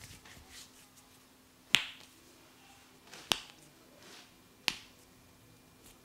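Three sharp, loud snaps about a second and a half apart, made during a barber's head and back massage.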